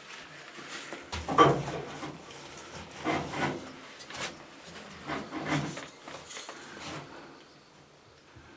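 Handling noises: rubbing and scraping against wood in several short bouts, the loudest about a second and a half in.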